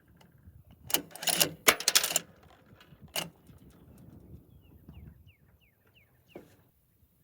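Metallic clicks and clatter from a bolt-action rifle being handled before a shot: a quick run of clicks about a second in, then single clicks near three and six seconds. A few faint short rising chirps come in the middle.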